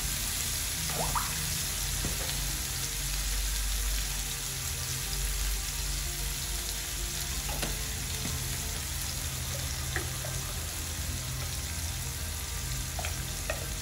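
Small-cut potato pieces frying in oil in a pan: a steady sizzle, with a few brief scrapes from stirring.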